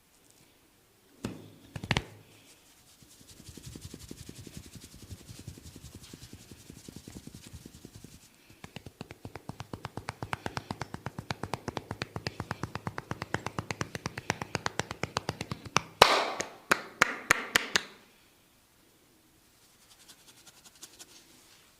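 Massage percussion by a barber's hands on a client's head and shoulders: two sharp slaps, then a long run of quick, steady rhythmic tapping that grows louder. It ends in a flurry of loud, sharp slaps.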